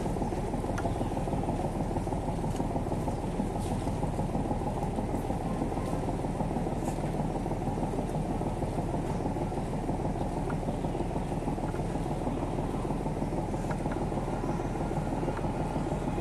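Steady low rumble of an engine running, unchanging in level, with a few faint clicks over it.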